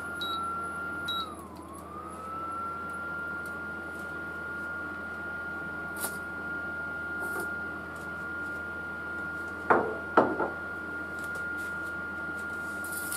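Induction cooker's cooling fan running with a steady high whine; its pitch dips briefly and recovers about a second and a half in. Two short beeps from the cooker's control panel come at the start, and two sharp knocks, ceramic cups being set down, are the loudest sounds about two-thirds of the way through.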